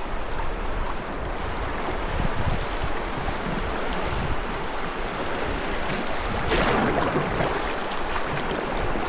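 River water rushing and splashing around a kayak hull under way, with a louder surge of splashing about six and a half seconds in.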